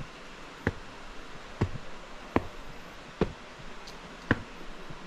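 Footsteps: five sharp steps, about one a second.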